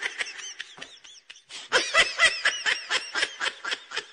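High-pitched laughter: a rapid run of short ha-ha pulses, several a second, softer at first and louder from a little under two seconds in.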